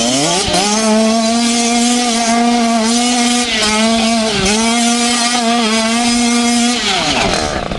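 Small dirt bike engine revved up and held at high revs, dipping briefly twice, then revs falling away near the end.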